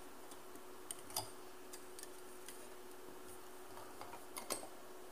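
Faint, scattered clicks and taps of a metal tripod light stand as its folding legs are opened by hand, with two sharper clicks close together near the end.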